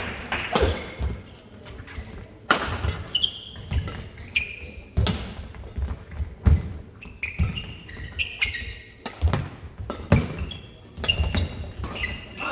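Badminton rally: rackets strike the shuttlecock every second or two, and players' shoes squeak and thud on the court floor between shots.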